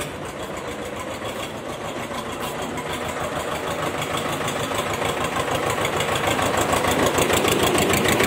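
Tractor engine running with a rapid, even knocking beat, growing steadily louder.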